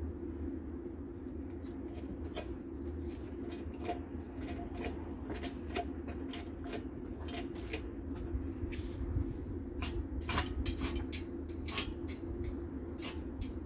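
Scattered light metallic clicks and knocks at an irregular pace over a steady low hum, a little busier toward the end.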